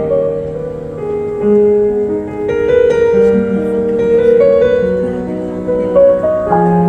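Instrumental break of a slow, tender song: piano chords held and changing every second or so.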